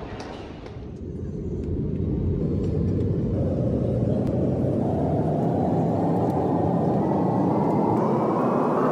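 Steady jet noise of an Airbus A320-family airliner heard from inside the passenger cabin, starting about a second in and slowly growing brighter. Before it come a few faint clicks.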